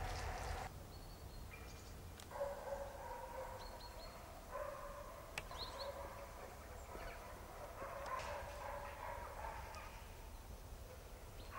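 A dog barking in three runs of barks a couple of seconds apart, with a few short bird chirps in between.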